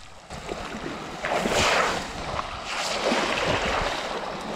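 Shallow water washing and splashing at the edge of a pebble beach in two surges, as a hooked striped bass is dragged ashore through the shallows. Wind rumbles on the microphone underneath.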